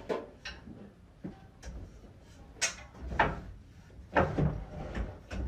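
Handling noises from a metal box spring and its fabric cover being worked into place: irregular knocks and clunks from the steel frame, mixed with rustling scrapes of fabric.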